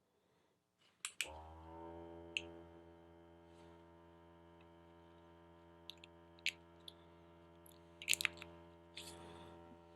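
A couple of clicks, then the Jet Gun battery coil cleaner's small electric pump starts about a second in, its pitch rising briefly before it runs as a quiet, steady hum, with scattered clicks and knocks over it. The pump runs but pushes no water out of the hose.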